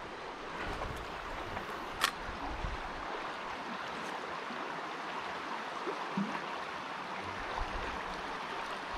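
River water flowing steadily over its bed, a continuous rushing, with one sharp click about two seconds in.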